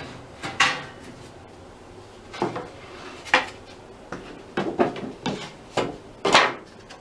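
Scattered knocks and clanks of objects being handled in the metal drawers of a tool cart built from a filing cabinet, a few at first and then a quicker cluster near the end.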